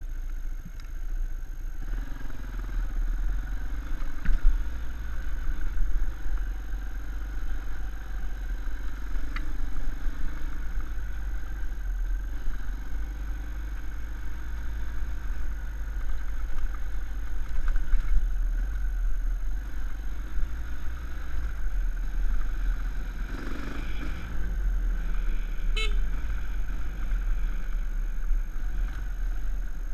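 Small dirt bike engine running steadily while riding a rough single-track trail, under a heavy low rumble, with a few sharp knocks and rattles from the bumps.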